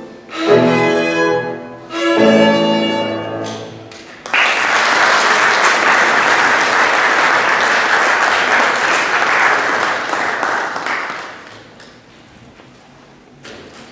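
A violin with piano accompaniment plays the closing phrases of a piece, the last note fading about four seconds in. Then the audience applauds for about seven seconds, dying away near the end.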